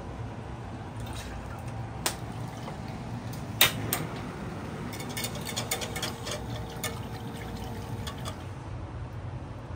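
Vinegar poured from a plastic measuring jug onto sugar in a hammered aluminium yukihira pan, with two sharp knocks in the first half. From about halfway, a wire whisk clicks many times against the pan as the vinegar and sugar are whisked over a gas flame. A steady low hum runs underneath.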